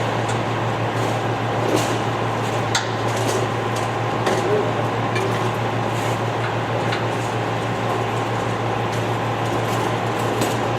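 Rubber stripper ring grinder running steadily: a continuous low hum and whirr with a few light ticks scattered through it.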